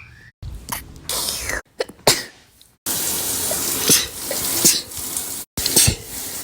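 A series of sneezes, sharp noisy bursts a second or two apart, in short stretches that start and stop abruptly.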